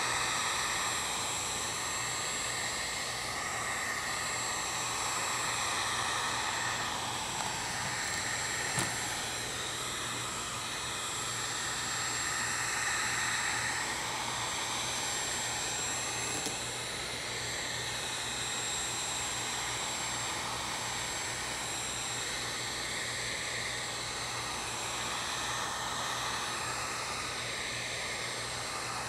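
Electric heat gun running on high, its fan blowing steadily with a thin high whine. The rush swells and fades slightly as the gun is swept back and forth over fiberglass to warm the resin and make it cure faster.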